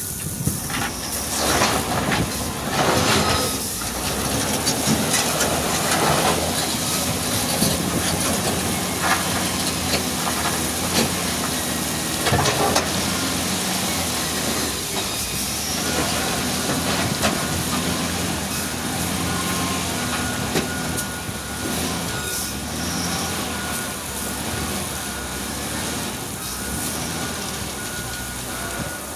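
Wheel loader's diesel engine running steadily under load, with a constant hiss and several sharp knocks and scrapes during the first half.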